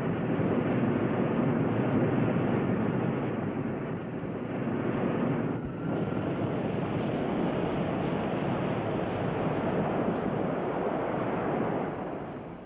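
Rocket sled run on a test track: a steady rushing roar that dips briefly about six seconds in and fades near the end.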